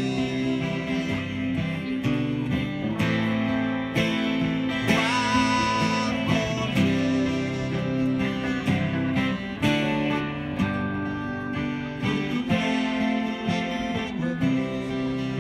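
Acoustic guitar strumming with an electric guitar playing lead lines over it, including a bent note about five seconds in.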